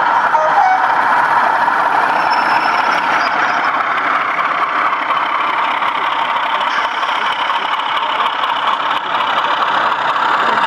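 DCC sound from sound-fitted 00 gauge model diesels: a diesel engine sound running steadily from small onboard speakers, over the hubbub of an exhibition hall, as a model diesel multiple unit runs in.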